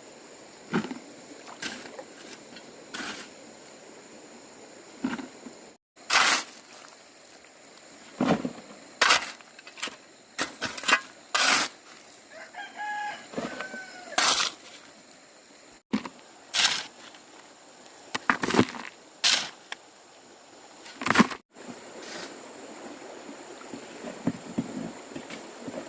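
A run of sharp knocks and clatters, as from hand work with tools and building materials, over a low hiss. A short pitched animal call comes about halfway through, and the sound cuts out suddenly three times.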